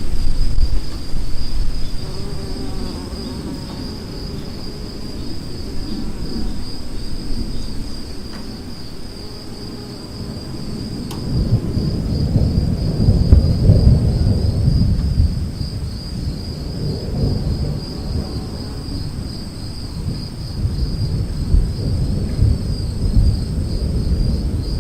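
Thunder rumbling low and rolling, swelling to its loudest about halfway through and then easing, over a steady high-pitched chorus of insects chirring.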